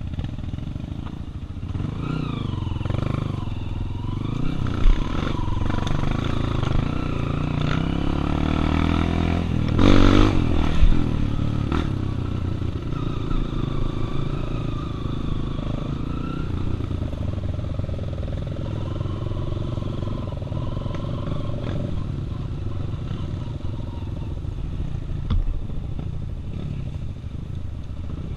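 Honda single-cylinder four-stroke trail motorcycle engines running and revving up and down. The engine pitch climbs to a loud peak about ten seconds in, with a couple of sharp knocks, then settles into steadier running.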